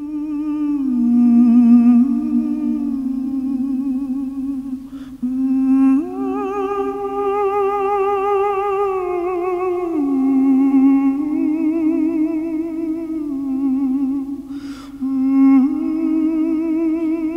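A single voice humming a slow, wordless melody with vibrato. It holds long notes and steps up and down between them, with two short pauses for breath.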